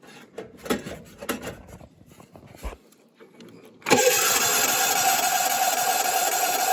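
A few knocks and clicks, then about four seconds in a John Deere engine starts at once and runs steadily at speed.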